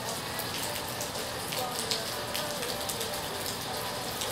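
Steady rain falling, with irregular ticks of individual drops landing close by.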